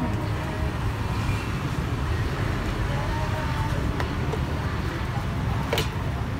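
Steady low rumble of road traffic, with a couple of clicks of plastic food containers and a plastic scoop being handled, the sharper one near the end.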